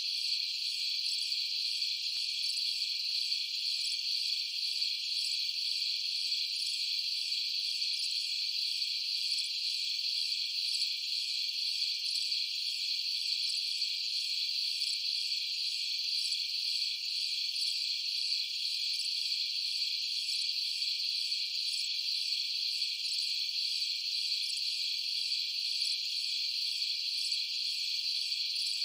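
Steady, high-pitched insect chorus, an unbroken shrill trilling with no lower sounds beneath it.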